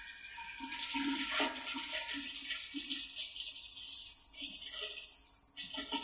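Water spraying inside a Bosch SGV43E93EU dishwasher in its rinse cycle, heard muffled through a sealed phone case: an uneven hiss and splashing that swells about a second in and gushes again near the end.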